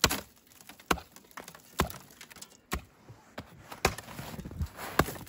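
Hatchet chopping a hole through thin river ice: about six sharp strikes, roughly a second apart, as the blade bites into ice and snow.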